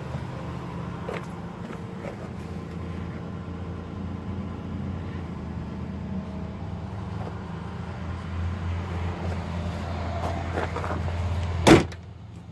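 A Chrysler Town and Country's 4.0 L V6 running steadily after a hydrolock repair, with a little more load in the second half. A single sharp knock sounds near the end.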